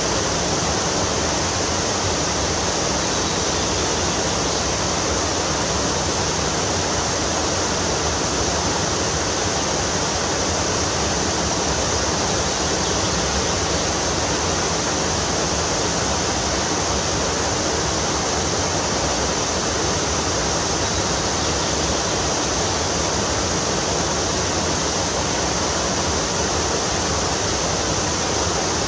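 Fast-flowing river water rushing, a steady, unbroken noise.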